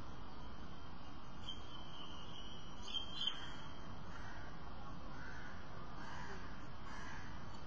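Faint bird calls, several about a second apart in the second half, over a steady background hiss.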